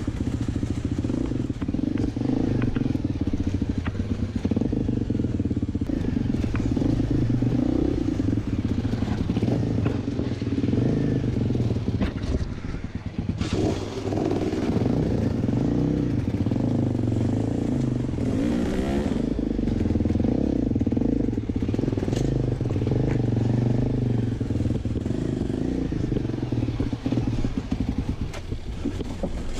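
Enduro dirt bike engine running close up, its revs rising and falling in short throttle blips as the bike crawls over rocks in a riverbed.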